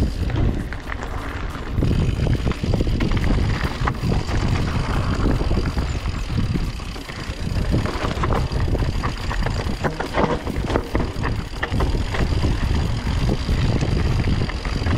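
Orbea Oiz full-suspension mountain bike descending rocky dirt singletrack: wind rumble on the microphone with tyres on loose stones and frequent clicks and rattles from the bike.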